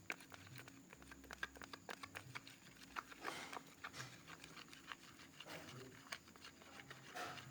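Faint, irregular sticky clicks and small squelches of a glue, liquid soap and activator slime mixture being stirred in a container.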